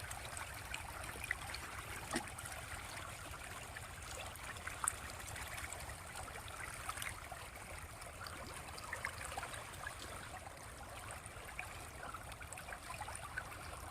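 Faint water noise from a fish pond, with scattered small splashes and clicks at the surface.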